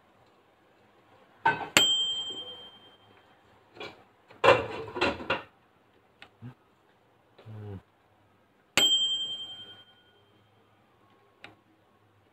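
Microwave oven's bell dinging twice, about seven seconds apart, each a single struck ding that rings out and fades over about a second. Between the dings come a burst of clattering knocks and a brief low buzz.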